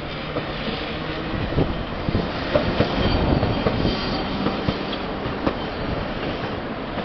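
Nagasaki Electric Tramway 1500-series streetcar passing close by on street track, its running noise with a string of sharp wheel clicks, loudest about halfway through and easing as it moves away.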